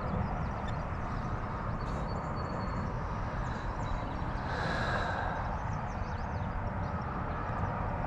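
Steady outdoor noise of wind rumbling on the microphone over a flowing river, with two faint, thin high tones a few seconds in.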